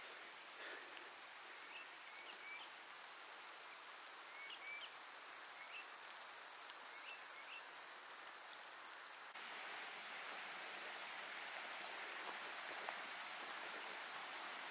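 Quiet forest ambience: a faint hiss with scattered short, high chirps from small birds, then about nine seconds in the sound jumps abruptly to a louder, steady hiss.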